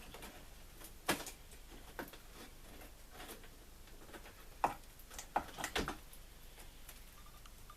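Scattered light clicks and knocks of OO gauge model railway track being pulled up from the baseboard, with the loudest cluster of several knocks a little after the middle.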